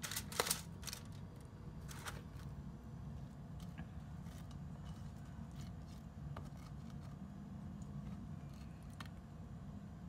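Black plastic kitchen tongs clicking and tapping against a stainless pot and a foil-lined tray while sauce-coated chicken pieces are handled. A cluster of sharp clicks comes about half a second in and another around two seconds in, with lighter scattered taps afterwards, over a low steady hum.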